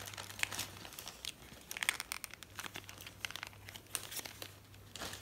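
Packaging being handled as hands open a small boxed lipstick: light crinkling with scattered small clicks and crackles.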